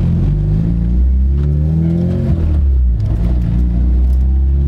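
Honda Civic Si's four-cylinder engine heard from inside the cabin, pulling away from a stop. The revs climb, drop sharply a little over two seconds in at a gear change, then climb again.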